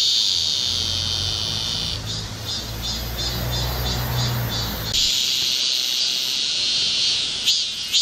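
Cicadas singing in a loud, high-pitched chorus. It starts as a steady buzz, breaks into a pulsing chant of about three to four beats a second from about two seconds in, and goes back to the steady buzz about five seconds in. The pulsing starts again near the end. A low rumble runs underneath for the first five seconds.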